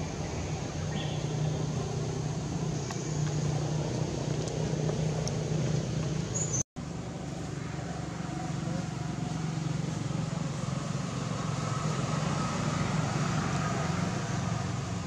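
Steady low hum of vehicle engines and traffic in the background. It drops out to silence for a moment about seven seconds in, where the footage is spliced.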